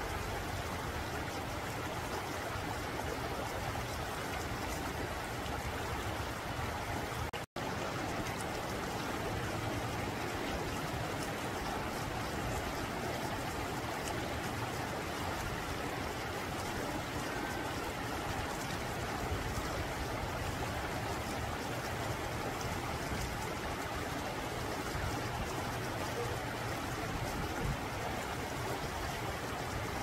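Shallow mountain stream flowing over and between rocks: a steady rush of water with trickling. The sound drops out for an instant about seven seconds in.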